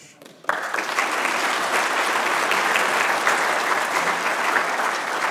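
Conference audience applauding, breaking out suddenly about half a second in and holding steady.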